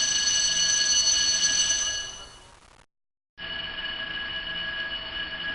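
Alarm ringing with a steady, high, shrill tone: the first ring fades out about two seconds in, and after a short silence a second, quieter ring starts.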